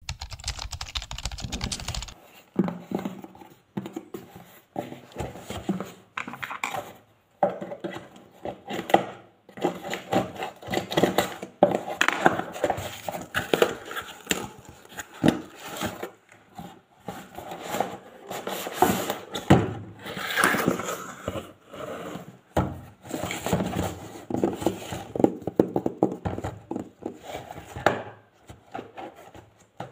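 A cardboard shipping box being opened and handled: irregular scraping, rustling, tearing and knocks of cardboard and packaging. A rapid, even clicking runs for the first two seconds, then cuts off.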